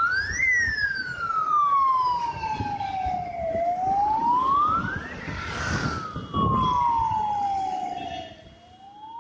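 Fire engine siren wailing. Each cycle rises quickly in pitch, then falls slowly, repeating about every four to five seconds over the rumble of road traffic. A brief rush of noise comes about five and a half seconds in.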